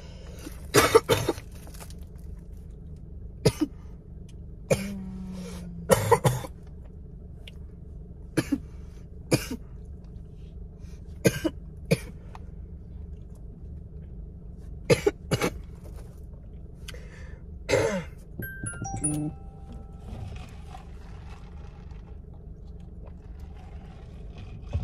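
A person coughing in short, irregular fits, about a dozen coughs spread over the stretch, with some throat clearing: coughing from smoke. Quiet music plays underneath.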